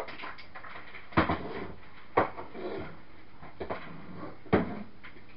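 Four knocks and clatters, about a second apart, as a battery charger and its leads are handled and set down on a kitchen worktop.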